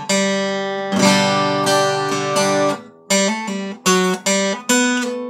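Acoustic guitar with light-gauge Adamas strings: a chord is struck about a second in and left ringing, then a run of single picked notes with hammer-ons and pull-offs on the third and fourth strings follows at about two to three notes a second.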